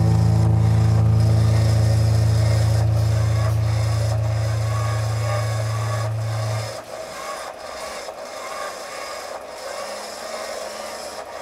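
A band's final low chord from amplified instruments held and slowly fading, then cut off abruptly about seven seconds in, leaving a steady hiss with faint rubbing.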